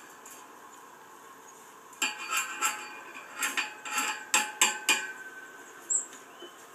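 Fencing wire and steel fittings clinking and rattling as the wires are worked at the base of a steel strainer post: a run of sharp metallic clinks from about two seconds in to about five, each with a short ring.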